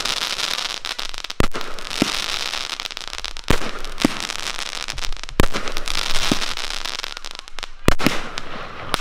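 A professional aerial fireworks display: shells burst in a string of sharp bangs, roughly one every second, over a continuous crackling hiss from the burning stars.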